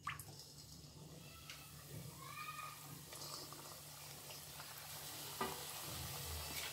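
Flower-shaped matri (namak pare) dough deep-frying in hot oil in a kadhai. A faint sizzle grows slowly louder as the oil starts bubbling around it.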